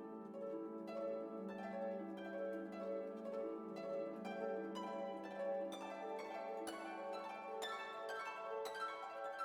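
Instrumental background music: a run of plucked, harp-like notes over a held low note.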